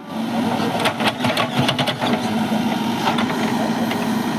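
A heavy diesel engine on earthmoving machinery runs steadily, with a burst of sharp clattering knocks between about one and two seconds in.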